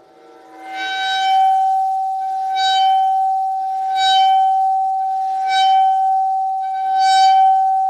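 Metal Chladni plate ringing at one steady high pitch, with a harsher, brighter surge about every second and a half.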